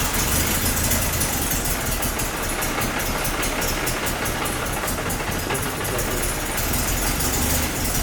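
Audi 90 quattro engine idling steadily with an even, regular beat.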